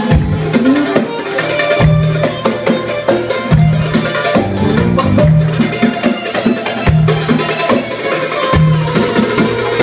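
Loud traditional Arabic dance music with drums and a bass figure that repeats about every one and a half seconds.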